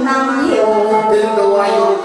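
Northern Thai saw (ซอ) folk singing with its accompanying band: long held notes, with a slide up in pitch about half a second in.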